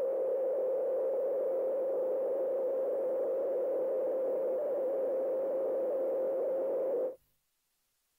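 A steady electronic drone held on one tone, wrapped in a hissy wash, cutting off suddenly about seven seconds in.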